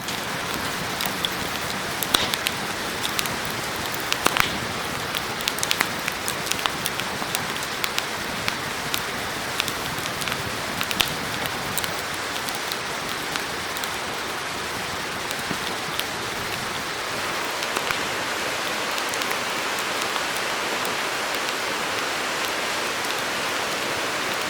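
Wood fire crackling with frequent sharp pops in a small folding fire pit, over the steady rush of a river running high after heavy rain.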